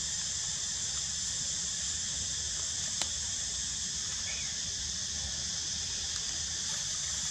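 Steady high-pitched drone of an insect chorus, unchanging throughout, with a single short click about three seconds in.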